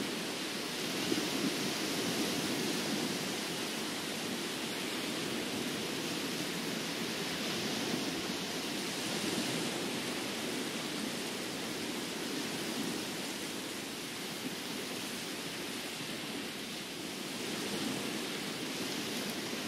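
Steady wash of sea surf breaking on a beach, an even rushing noise with no distinct wave crashes.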